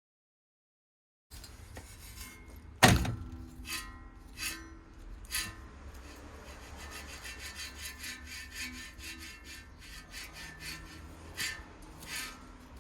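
Subaru Impreza GDB wheel hub bearing making its abnormal noise as it turns: a run of irregular clicks and scraping over a low rumble, starting about a second in, with one loud knock about three seconds in.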